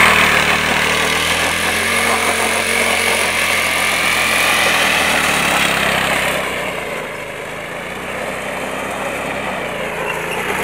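Small homemade vehicle driven by a refrigerator motor, running steadily with its pitch drifting slightly. It gets quieter about six to seven seconds in and louder again near the end.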